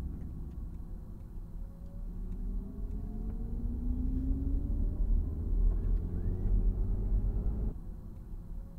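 Mercedes EQS SUV electric drive heard from the cabin while accelerating: a low rumble with a faint whine that rises in pitch. Near the end the sound drops abruptly, then a new rising whine begins.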